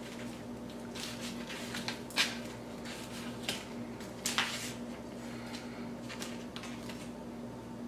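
Chef's knife cutting down between the rib bones of a grilled rack of lamb on a foam plate: short crunching, scraping cuts with a few sharp clicks, the loudest about two and four seconds in, over a steady low hum.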